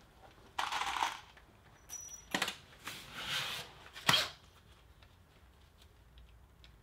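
Handling noise as ear defenders are put on and a cordless drill is picked up: several short rustles and scrapes, and a sharp click about four seconds in, then quiet.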